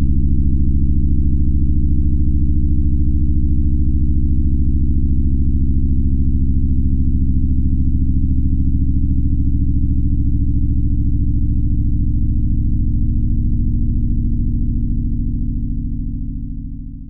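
Loud, low electronic drone of several steady sine tones layered together, holding level and then fading out near the end.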